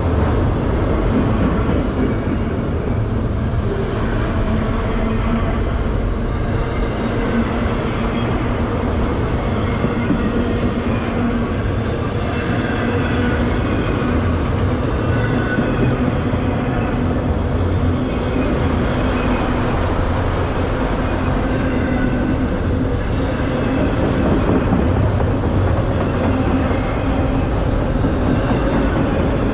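Autorack freight cars rolling past close by, a loud steady rumble of steel wheels on rail with a few faint drawn-out tones over it.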